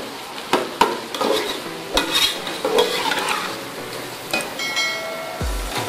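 A steel spoon stirring beef masala frying in ghee in a steel pot: sizzling, with sharp clicks and scrapes of the spoon against the pot. Background music with a low beat comes in near the end.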